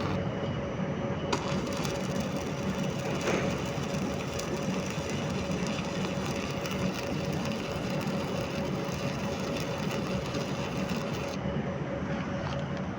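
Electric arc welding on steel plate: a steady hiss starts about a second in and stops sharply a couple of seconds before the end, over a constant machine hum.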